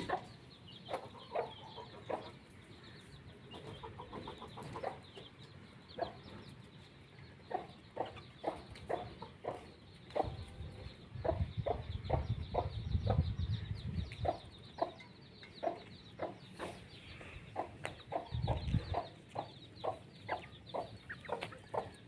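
Domestic chickens clucking: short, separate clucks, sparse at first and then coming a couple a second through the second half. A low rumble sounds twice, once around the middle and once near the end.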